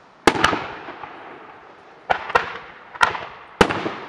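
Aerial fireworks shells bursting overhead: about six sharp bangs, several in quick pairs, each trailing off in a rolling echo.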